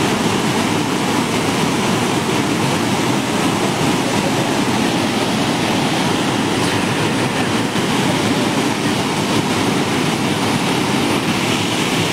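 River in flood after heavy rain, its muddy water rushing and churning in a loud, steady torrent.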